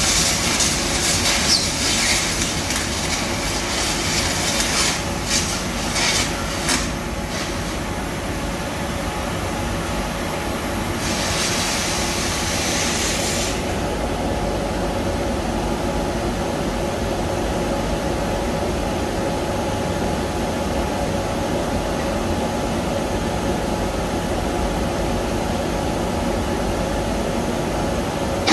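Steady industrial machinery din inside a ship's hull under work: a constant rumble and hiss with faint steady tones. Scattered metallic knocks come in the first several seconds, and a loud high hiss runs for a few seconds about eleven seconds in.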